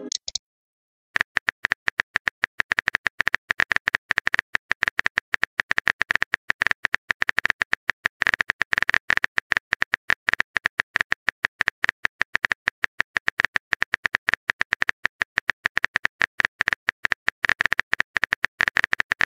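Rapid, irregular keyboard typing clicks, a typing sound effect, starting about a second in and continuing without a break.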